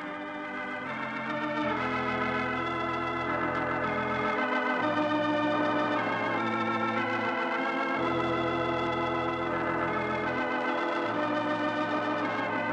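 Organ playing the closing theme of a radio programme: slow sustained chords over a deep held bass note that changes every two to three seconds.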